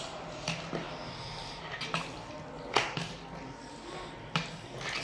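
Plastic spatula stirring and folding a thick yogurt mixture of potatoes and bhallas in a plastic bowl: soft wet squelching with a few sharp knocks of the spatula against the bowl, the loudest nearly three seconds in.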